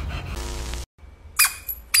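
A dog's squeaky toy squeaking twice, about half a second apart: short, sharp, high-pitched squeaks in the second half.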